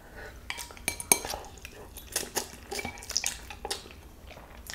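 Wooden chopsticks clicking and scraping against a plastic bowl as stir-fried ramen noodles are picked up and eaten: a run of irregular small clicks.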